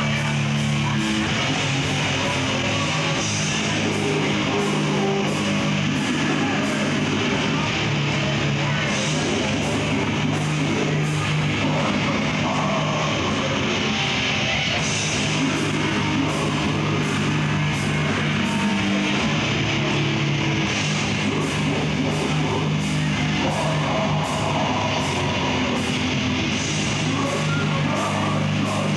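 Death metal band playing live: distorted electric guitars, bass and drums in a dense, unbroken wall of sound, with cymbals struck in a steady beat.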